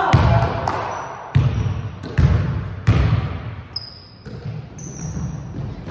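Basketball bouncing on a hardwood gym floor, several separate bounces about a second apart in the first three seconds, each with a hollow ring in the big hall. Short high squeaks of sneakers on the floor follow past the middle.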